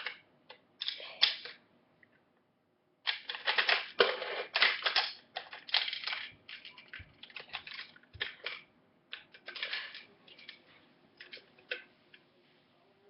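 Toy gumball machine being worked to show that it dispenses: irregular runs of sharp plastic-and-metal clicks and rattles from its coin-and-crank mechanism, with a few dull knocks about midway.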